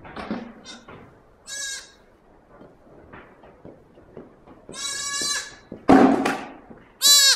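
A newborn goat kid bleating in a high, thin voice three times: a short bleat, then a longer one, then a loud close one near the end. A loud scuffing noise comes just before the last bleat.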